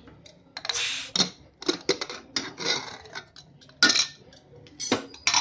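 A pressure cooker being opened: metal clicks and clanks of the lid and handle as it is unlocked and lifted off, with several short hisses.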